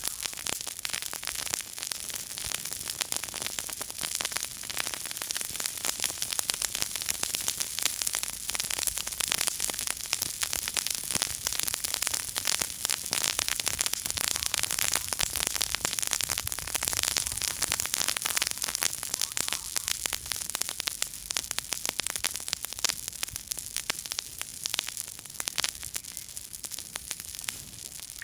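Small campfire crackling: a dense, continuous run of tiny pops and snaps over a steady hiss.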